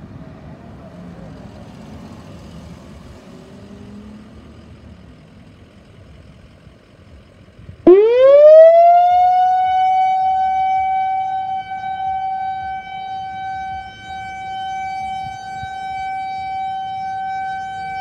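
Whelen WPS 4004 electronic outdoor warning siren sounding in a test. About eight seconds in its tone sweeps up fast and then holds at one steady high pitch, swelling and easing in loudness as the rotating head turns.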